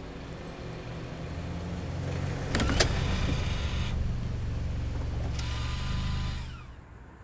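A car's engine running, growing gradually louder, with a whirring, noisy stretch and a few sharp clicks a couple of seconds in. It falls in pitch and dies away near the end.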